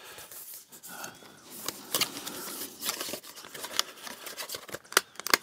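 Cardboard product box being opened by hand: flaps and inner sleeve scraping and rustling, with scattered sharp clicks and taps from the card.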